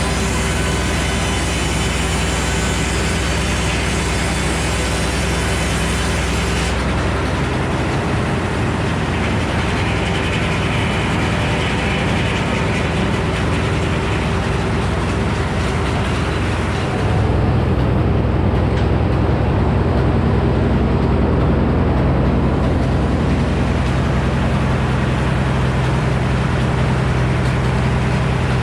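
Frick sawmill and its engine running with a steady hum. The sound shifts about seven seconds in, and from about seventeen seconds in a lower, louder hum takes over.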